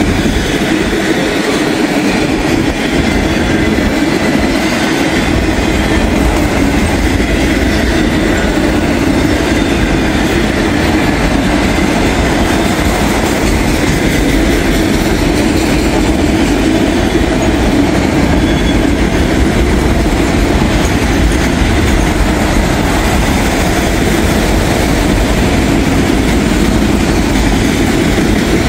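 A freight train of empty autorack cars rolling past, a steady rumble and rattle of steel wheels on the rails and the cars' bodies.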